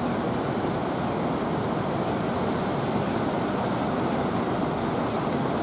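Kamo River in spate after heavy rain, its muddy floodwater rushing steadily along the channel and over its low weirs.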